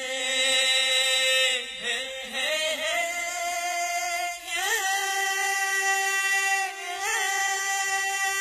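Music: a singing voice holds long, steady notes without words, sliding up into each new note, as the opening of a devotional-style song.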